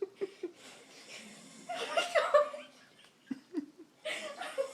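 A person laughing under their breath in short bursts, with a louder stretch of laughter about two seconds in.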